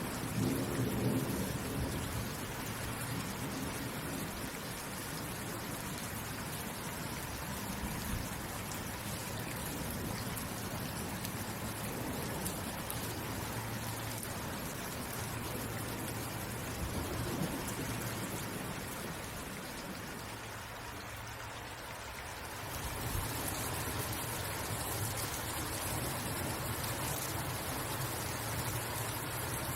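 Steady rain, an even dense hiss, with a low rumble swelling about a second in and fading over the next few seconds. The rain thins briefly about two-thirds of the way through, then comes back as strong as before.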